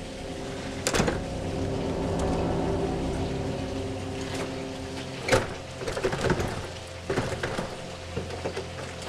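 Sustained, droning music with several held low tones. A few sharp knocks cut through it, the loudest about five seconds in, followed by a scatter of smaller knocks.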